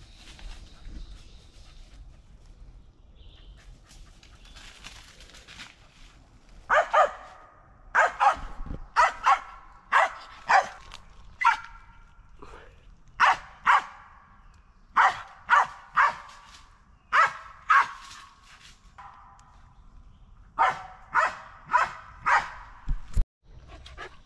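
Squirrel dog barking treed at a squirrel up a tree: about twenty sharp barks in pairs and short runs, starting about seven seconds in.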